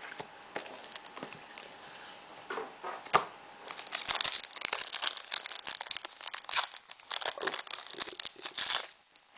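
Foil wrapper of a Pokémon EX Dragon booster pack crinkling and tearing as it is opened by hand. A few light clicks come first, then dense crinkling that stops suddenly near the end.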